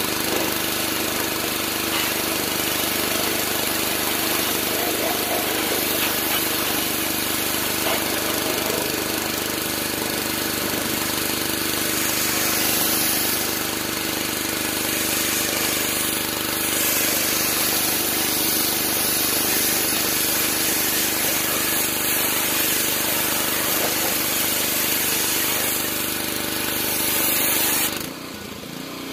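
Pressure washer spraying high-pressure water onto a car's engine bay: a steady hiss of spray over the washer's steady motor and pump hum. Near the end the spray stops and the motor runs on more quietly.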